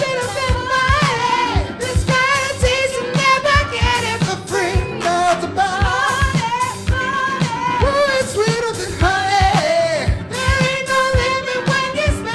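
Live soul-funk band playing a song: lead and female backing vocals singing over electric guitar, bass guitar and keyboard, with a steady low beat of about two thumps a second.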